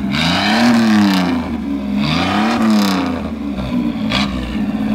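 1989 Dodge Dakota's 3.9-litre V6 revved twice, the pitch rising and falling on each rev, then settling back toward idle. It has dual exhaust, which the owner thinks is straight pipes with a big tip.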